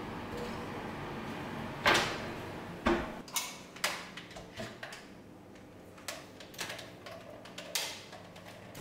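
An oven door shut with a thud about two seconds in, over a faint steady hum. A knock follows about a second later, then a run of light clicks and knocks as a hand mixer is handled on a countertop.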